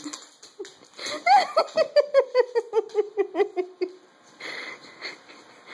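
A person laughing: a fast run of short 'ha' pulses, about five a second, falling in pitch over nearly three seconds, starting about a second in.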